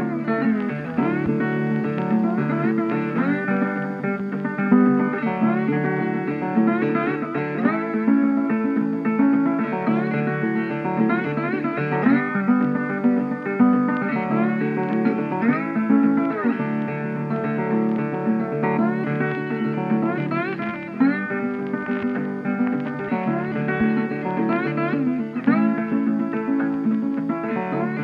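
Background instrumental music led by a plucked guitar, with notes that slide in pitch.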